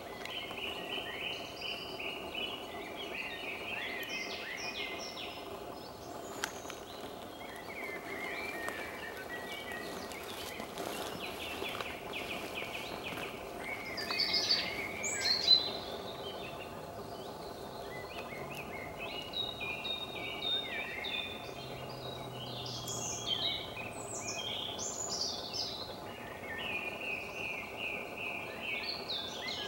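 Songbirds singing in woodland, a run of repeated chirping phrases, loudest about halfway through, over a steady faint low hum.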